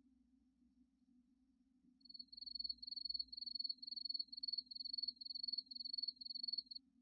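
Cricket chirping, a high, even series of about two to three chirps a second that starts about two seconds in and stops abruptly near the end, the stock 'crickets' cue for a puzzled silence. A faint low hum runs underneath.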